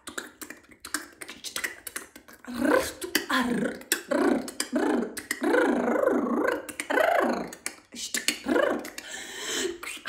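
A woman's voice making rapid mouth clicks for the first couple of seconds, then chanting light language: strings of invented, non-word syllables, with more clicks between them.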